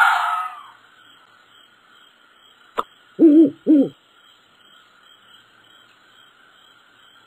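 Owl hooting twice, two short hoots in quick succession a little past the middle. A short noisy burst at the very start and a single click just before the hoots.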